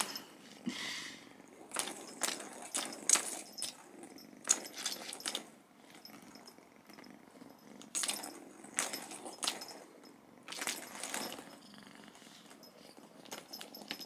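Plastic balls clicking and rattling around the track of a cat's tower ball toy as a kitten bats them, in several short runs of clicks.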